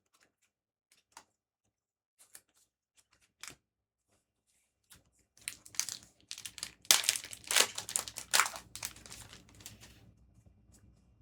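A foil One Piece Card Game OP13 booster pack being torn open, its wrapper crinkling in a dense run of loud crackles through the second half. Before that come a few faint, separate clicks.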